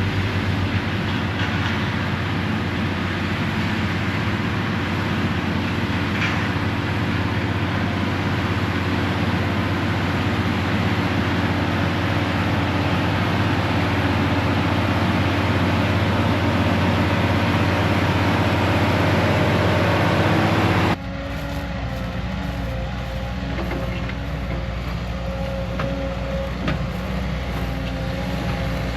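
Heavy diesel field machinery running steadily. About two-thirds of the way in, the sound changes abruptly to a different, slightly quieter machine running with a wavering whine.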